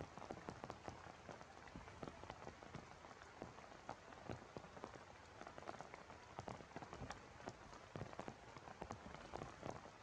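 Steady rain falling, with many separate drops heard striking close by.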